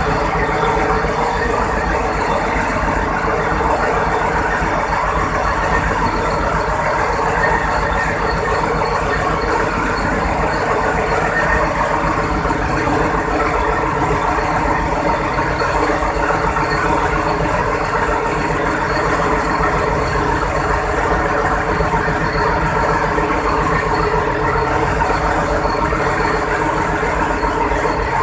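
Cummins VTA-28 marine diesel, a turbocharged V12, running steadily on its first start after an overhaul.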